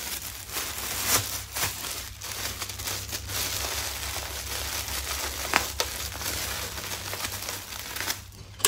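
Thin clear plastic bag crinkling and rustling as a plush toy is pushed into it and handled.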